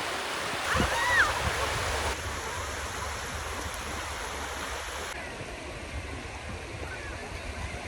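Steady rushing noise of surf and wind at the seashore, with a low thump and a short high call that rises and falls about a second in.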